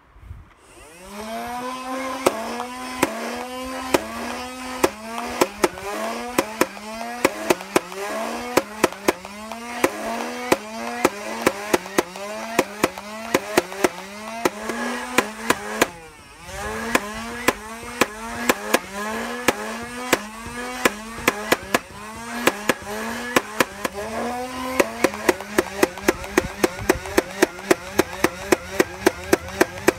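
Nerf Rival Khaos MXVI-4000, a battery-powered flywheel blaster, firing foam balls in full auto: a motor whine that drops and climbs back with each shot, about two shots a second. It stops briefly about halfway, then fires a faster run near the end.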